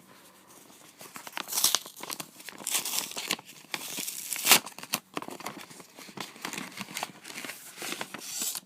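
A mail package being torn open and its packaging crinkled by hand, in a run of rips and rustles that stops abruptly.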